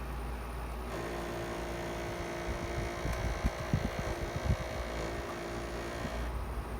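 Haier JA-16R window air conditioner running with a steady hum. About a second in, its sound fills out with added higher-pitched noise and steady tones, and from about two and a half seconds irregular low thumps come and go. The unit is new, and its owner reports it making an abnormal noise.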